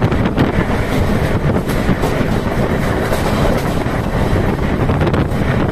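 Passenger train running at speed, heard from its open doorway: a loud, steady rumble of wheels on the rails with repeated clacks over the rail joints.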